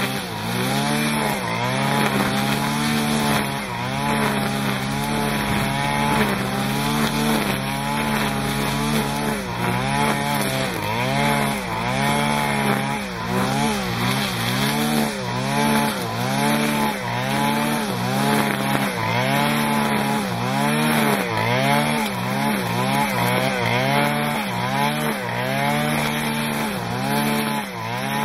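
Dolmar MS-4510 brushcutter's 45 cc two-stroke engine running at high revs while its three-tooth blade cuts grass. Its pitch sags and recovers about once a second as the blade takes load on each sweep through the grass, and the sweeps come a little faster in the second half.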